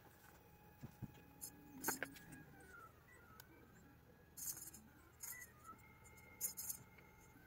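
Faint handling noise: several brief, high-pitched jingling rustles and a click, over a faint thin whine that drifts a little in pitch.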